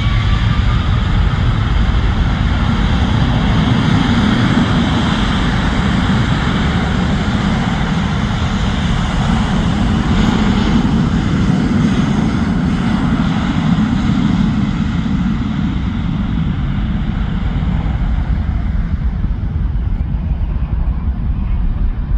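Boeing 777-200ER's twin jet engines at takeoff power, a loud steady roar with deep rumble and a whine that rises right at the start. The upper hiss of the roar fades over the last few seconds as the jet pulls away.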